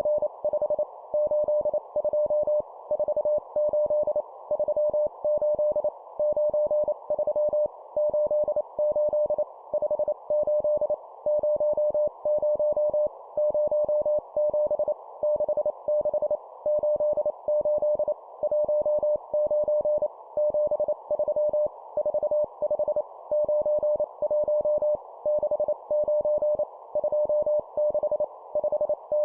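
Morse code (CW) practice tone sent at 25 words per minute: a single mid-pitched beep keyed in rapid dots and dashes, in short groups of two-digit numbers with brief pauses between them, over a faint steady hiss.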